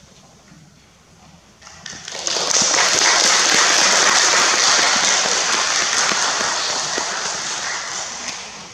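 Audience applauding: the clapping starts about two seconds in, swells quickly to a steady, dense level and fades away near the end.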